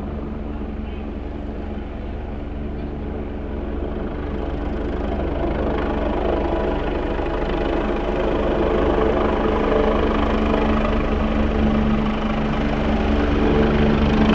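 Helicopter turbine engine and rotor running steadily, with a low rumble and a steady whine. It grows gradually louder from about four seconds in.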